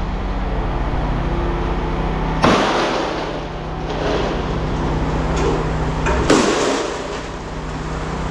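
Two hard hammer blows on metal bolts fixed to a stainless-steel piece, about four seconds apart, each ringing briefly, struck to break the bolts off and leave clean stainless. A steady low machine hum runs underneath.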